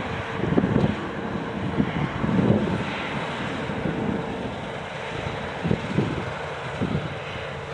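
Wind gusting on the microphone over the steady, distant drone of a Claas combine harvester working the field.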